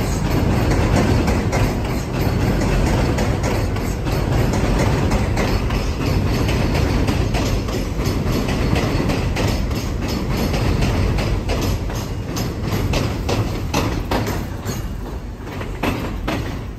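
NYC subway R62A train on the 1 line running along the elevated track, a steady rumble with the wheels clicking over rail joints and switches. The clicks grow more distinct in the second half, and the sound fades slightly near the end.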